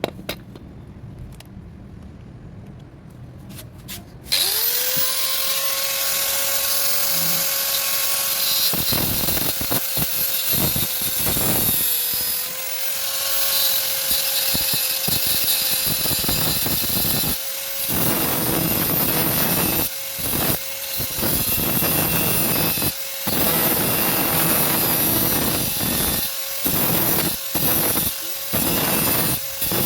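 A handheld power tool starts about four seconds in with a steady whine, then grinds against the rusted car bodywork with a continuous rasping noise. It pauses briefly and restarts several times in the second half.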